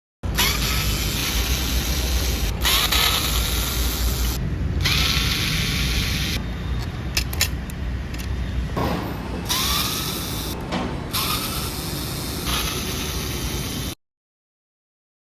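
Electric screwdriver running in a series of short spells, several starting with a rising whine as the motor spins up, while screws are taken out of a laser printer drum cartridge. A few sharp clicks come in the middle.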